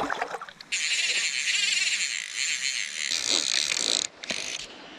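A brief splash of water as a trout is let go, then a fly reel's high, even buzz as line runs through it while a fish is played. The buzz breaks off for a moment about four seconds in and starts again.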